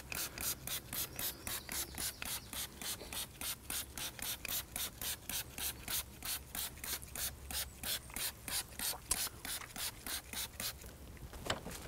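Hand trigger spray bottle pumped rapidly, about four squirts a second, spraying deck cleaner onto a boat deck; the squirting stops near the end.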